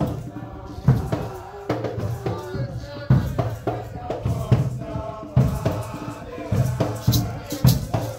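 Nyahbinghi drumming and group chanting: a heavy bass drum struck roughly once a second under hand drums and voices singing together, with sharp high rattling strokes joining near the end.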